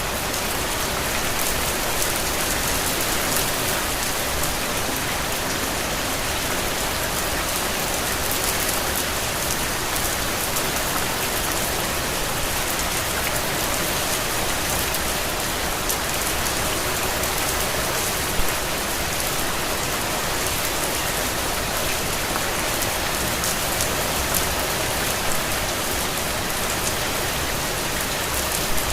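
Steady rain falling on a surface, an even patter with one slightly louder tap about 18 seconds in.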